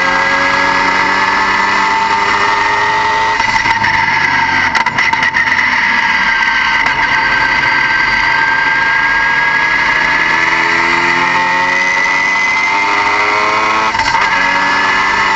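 Car engine running, its revs slowly rising and falling, under a steady high-pitched whine, with a few brief knocks about five seconds in and near the end.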